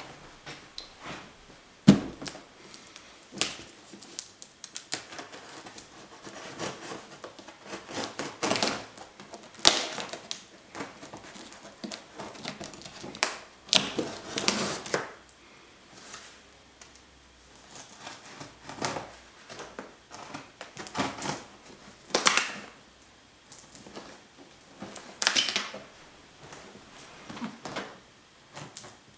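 Hands working on a cardboard parcel sealed with plastic packing tape: irregular taps, clicks and scratches of fingers on cardboard and tape, with a sharp knock about two seconds in and a few longer rasping stretches as the tape is picked at and pulled.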